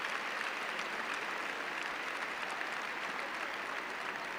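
An audience applauding steadily, easing slightly toward the end.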